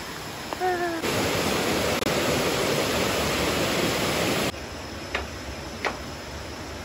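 Shallow stream rushing over rocks, starting abruptly about a second in and cutting off suddenly about three and a half seconds later. A softer background follows, with two sharp clicks.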